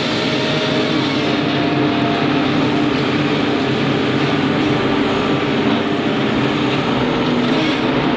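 Log loader's engine and hydraulics running steadily while its grapple boom swings, a constant loud machine noise with a hum that shifts slightly in pitch as the load changes.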